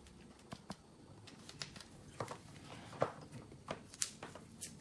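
Light handling noise: several sharp clicks and taps at irregular intervals as the power strip and its packaging contents are moved and set down, the loudest about three and four seconds in.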